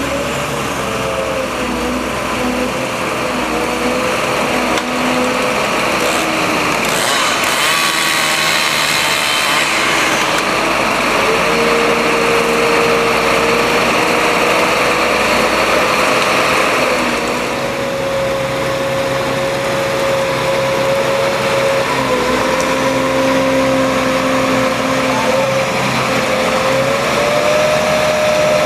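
Felling crane's engine and hydraulic drive running under load while the boom with the DOLL Tree Trimmer head is moved, a steady whine that steps up and down in pitch several times. A harsher, brighter stretch of sound runs from about seven to ten seconds in.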